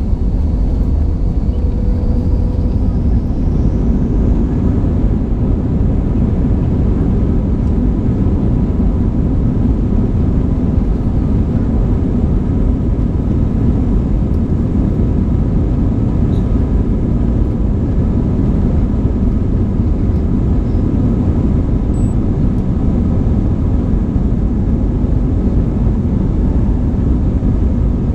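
Cabin noise of an Airbus A320-family jet airliner taxiing: the engines at low power make a steady low rumble, with a faint steady whine over it.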